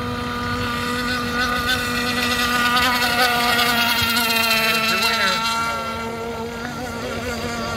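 Several 1/6-scale gas RC racing boats' small two-stroke engines whining at full throttle, growing louder to a peak in the middle and fading after about six seconds as they pass.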